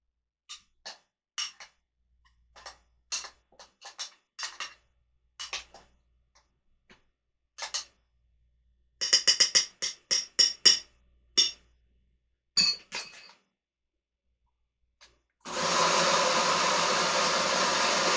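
A string of sharp clicks and knocks as the countertop blender's plastic lid is taken off and handled, then, about three-quarters of the way in, the blender motor starts and runs steadily, pureeing butternut squash with onion, garlic, olive oil and coconut milk.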